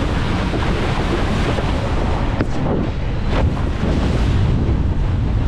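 Wind buffeting a head-mounted action camera's microphone at riding speed on a wakeboard, with water rushing and spraying underneath. There are two short knocks, about two and a half and three and a half seconds in.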